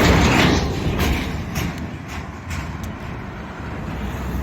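Road traffic: a loud rushing swell of vehicle noise at the start that fades within about a second, leaving a steady low road rumble with a few light clicks.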